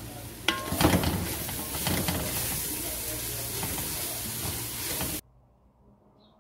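Chopped red onions sizzling as they are dry-sautéed in a large metal pot, before any oil goes in, and stirred with a wooden spoon. A few knocks of the spoon against the pot come in the first second. The sizzling cuts off suddenly about five seconds in.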